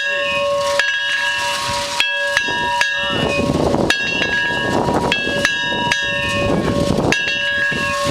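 The Memorial Bell Tower's bell rung by a pulled rope: a strike every one to two seconds, each ringing on under the next, and a single pull often giving more than one ring.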